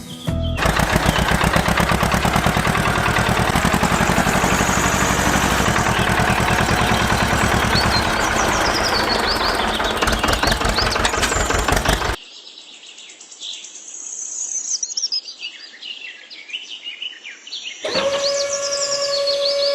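A loud motor-driven machine runs with a fast, even pulsing for about twelve seconds and cuts off suddenly. Birds chirp throughout, and near the end a steady hum comes in.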